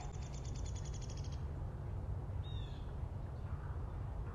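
A bird's fast, even trill in the first second or so, then a single short chirp, over a steady low background rumble.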